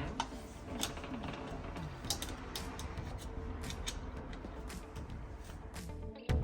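Screws being driven into the smart lock's mounting with a screwdriver: irregular small clicks and ticks of metal on metal.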